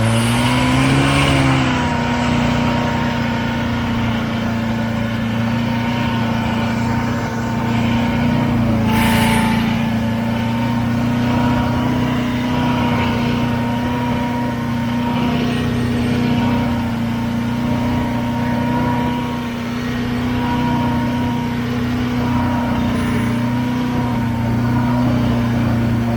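Buran SB-640A snowmobile's two-stroke twin engine pulling away, its pitch rising over the first second or two, then running steadily under load through deep snow. A brief rush of noise cuts across it about nine seconds in.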